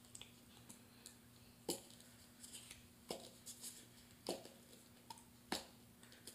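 Faint clicks and taps of a plastic glue bottle being handled and squeezed, the larger ones about one a second.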